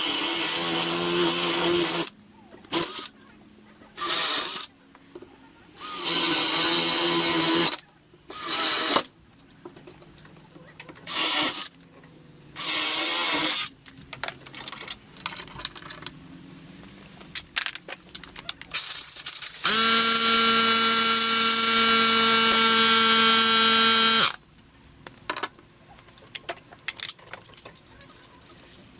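Handheld power tool switched on in about seven short bursts of a second or two each. It then runs once for about five seconds with a steady motor whine, which cuts off abruptly.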